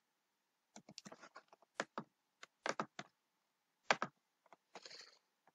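Computer keyboard keystrokes and mouse clicks, about a dozen sharp separate clicks at an irregular pace.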